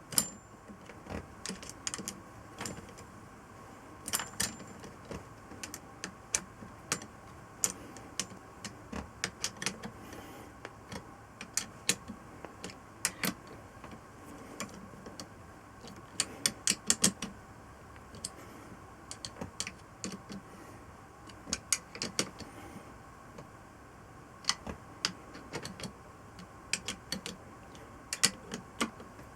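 Irregular sharp metallic clicks and clinks, sometimes several in quick succession, as of hand tools and small metal engine parts being handled and set down during motorcycle engine assembly.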